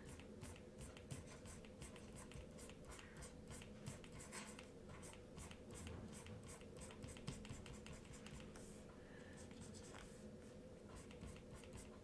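Faint, quick scratching and tapping of a stylus drawing many short strokes on a graphics tablet.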